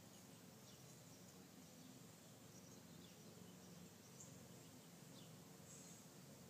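Near silence: faint background hiss with a few brief, faint high chirps.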